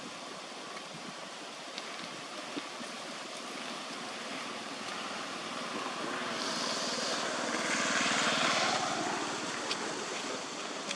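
An engine passing by: a steady hiss of background noise swells to a peak about eight seconds in and then fades away.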